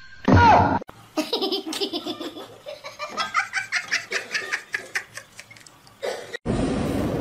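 A person laughing hard in rapid, high-pitched bursts for several seconds, after a short loud sound that falls in pitch near the start.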